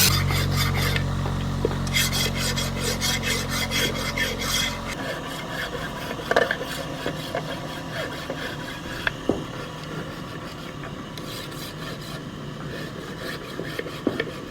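Repeated rasping, scraping strokes, typical of filing metal by hand. A steady low hum runs under the first five seconds and then stops, leaving the scraping with scattered small clicks.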